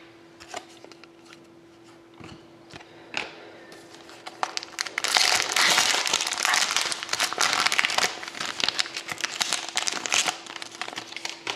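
Foil wrapper of an Upper Deck Artifacts hockey card pack crinkling loudly as it is slit open and the cards are pulled out, for about six seconds starting some four and a half seconds in. Before that come a few light clicks and taps of cards being handled.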